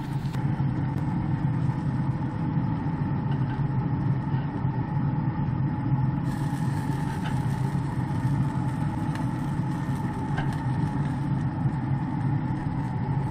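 Steady low hum of a running Traeger pellet grill's fan, with a few faint clicks of metal tongs as poppers are lifted off the grate.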